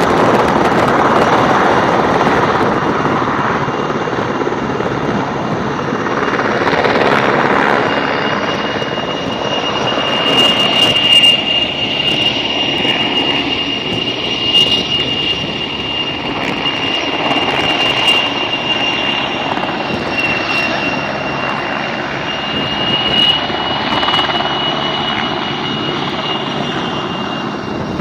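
A helicopter flying, with steady rotor and engine noise and a high, steady whine that grows strongest from about ten seconds in.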